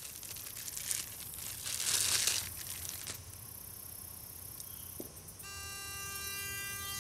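Packaging rustling and crinkling as a solar sonic mole and gopher repeller is handled. About five seconds in there is a click, then the repeller sounds a steady, buzzy electronic tone for about two seconds: its ground-vibration pulse, rated near 400 hertz.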